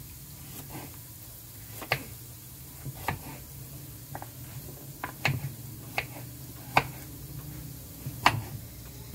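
Kitchen knife slicing carrots on a wooden cutting board: about nine sharp, irregularly spaced knocks as the blade goes through and strikes the board. A low steady hum runs underneath.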